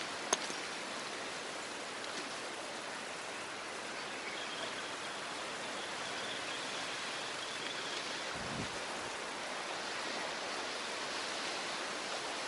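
Steady wash of sea water and wind along the shore, an even hiss with a single light click just after the start.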